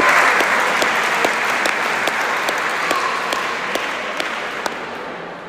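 Spectators applauding a won point of bare-hand pelota, the applause loudest at first and dying away, while one person's separate claps keep a steady beat of a little over two a second.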